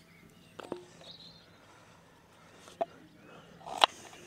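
A few light clicks and knocks from camp cooking gear and cutlery being handled while food is portioned out, the loudest near the end, over a quiet outdoor background.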